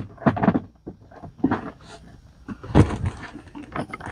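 Crinkling and knocking from a plastic poly mailer package being handled as a pair of scissors is brought in and laid on it: a run of uneven rustles and taps, with the loudest knock a little under three seconds in.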